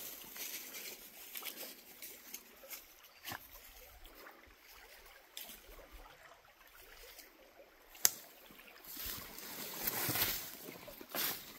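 A small woodland creek trickling, with scattered clicks and rustles and one sharp snap about eight seconds in.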